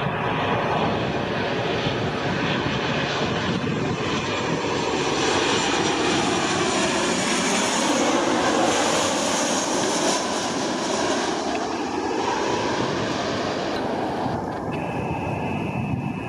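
The jet engines of an Amazon Prime Air Boeing 737 (CFM56 turbofans) running at approach power as it flies in low on final approach. The sound swells as it passes close overhead about eight seconds in.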